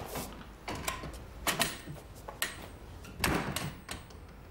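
A wooden door being opened and shut, heard as a handful of knocks and clicks about a second apart, with the fullest thump about three seconds in.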